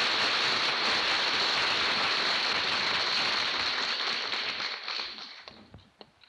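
Studio audience applauding at the end of a song. The applause dies away about five seconds in, ending in a few scattered last claps.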